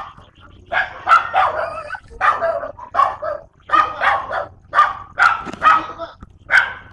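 A dog barking over and over, in short loud barks about two a second.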